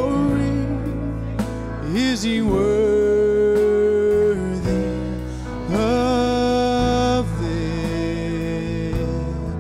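Live worship music from a church band in a gap between the choir's sung lines: accompaniment with held melody notes that bend and waver, and occasional sharp percussive hits.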